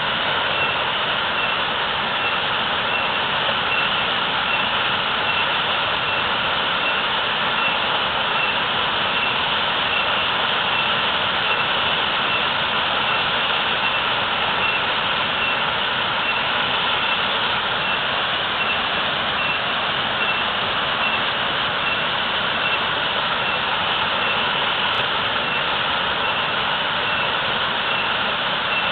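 Natural waterfall with heavy, fast-falling water, rushing steadily and evenly without a break.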